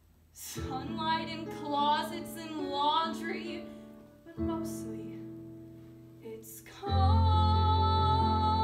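A woman singing a musical theatre song with piano accompaniment. A phrase with vibrato over piano chords fades out, and about seven seconds in she starts a long held note with vibrato.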